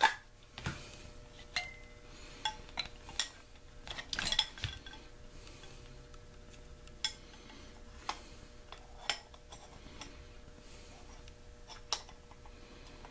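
Scattered sharp clicks and knocks of small objects being handled on a tabletop as jute twine is knotted, with a quick cluster of them about four seconds in, over a faint steady hum.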